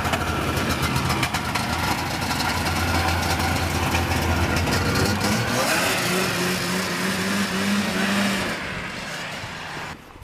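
1975 Arctic Cat snowmobile's two-stroke engine running steadily, then revving higher about six seconds in as the sled is ridden off. Near the end the engine sound drops and fades.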